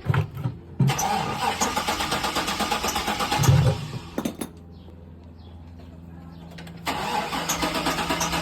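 A GMC truck's starter cranks the engine, which turns over rhythmically but never fires. The first try lasts about three seconds, and a second try begins about seven seconds in after a short pause. This is a crank-no-start, which the owner traces to having no spark: an ignition fault.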